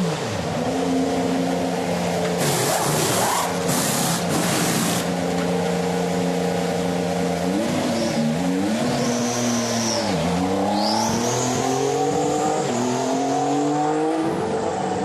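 2014 Formula 1 1.6-litre turbocharged V6 hybrid engine running, its note holding steady, dipping twice around the middle and then climbing in steps through the gears near the end, with a high whistle rising and falling over it.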